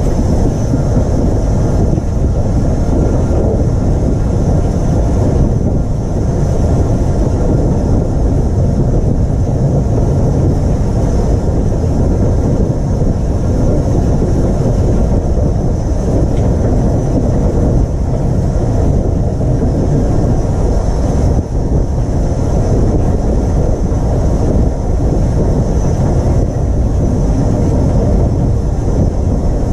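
Taff Vale Railway No.85 tank engine running along the line, heard from a camera on its boiler top: a loud, steady roar of running noise mixed with wind on the microphone.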